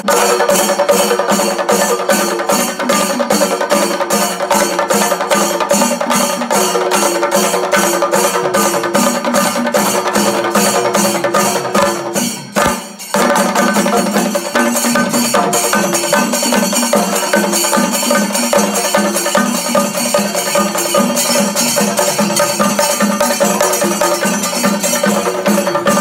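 Music with a fast, steady percussion beat, briefly dropping out about twelve and a half seconds in.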